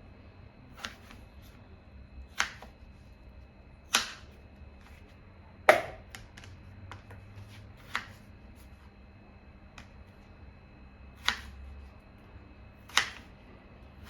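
A series of sharp, separate knocks or clicks, about eight of them spaced irregularly one to two seconds apart, the loudest a little under six seconds in, over a faint steady hum.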